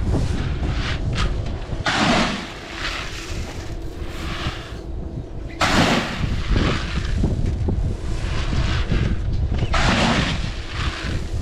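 Dairy feed pellets scooped with a plastic bucket and poured into a tractor's front-loader bucket, each pour a rushing rattle of about a second, three times, over a steady low rumble.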